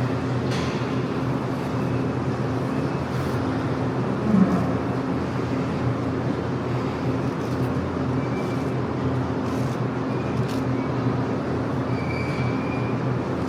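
Steady low machine hum with a constant pitch. About four and a half seconds in, a short, louder low tone sounds once.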